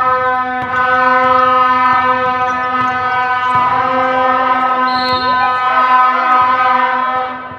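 Basketball gym's electronic buzzer sounding one long, steady, buzzy tone for about eight seconds, stopping shortly before the end.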